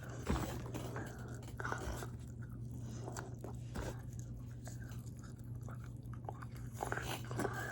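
A person biting and chewing french fries close to the microphone, with irregular crunches and mouth noises, over a steady low hum.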